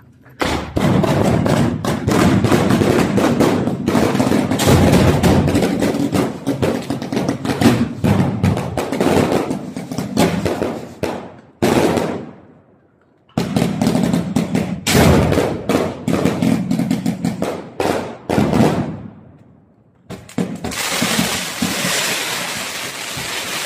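A multi-shot fireworks cake firing in rapid volleys of pops, bangs and crackle. It breaks off twice for a second or so, and near the end gives way to a steadier hiss and crackle.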